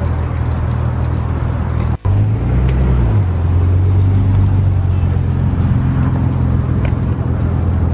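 Car engine running close by, a steady low-pitched sound, as a red Nissan 300ZX moves slowly past. The sound cuts out for an instant about two seconds in.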